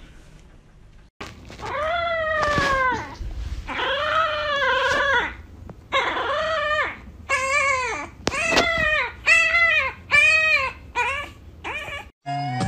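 French bulldog puppy howling: a string of about nine rising-and-falling howls, the first two long and drawn out, the later ones shorter and quicker.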